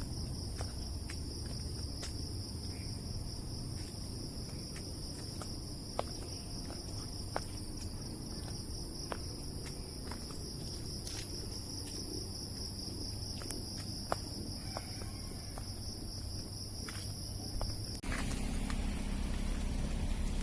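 Night insect chorus: a steady, shrill chirring in two high bands, with scattered faint ticks. About 18 seconds in it cuts off abruptly and gives way to a louder, even rushing noise with a low hum.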